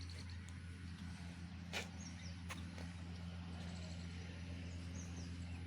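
Steady low motor hum with a couple of sharp clicks about two seconds in, and a few faint high chirps.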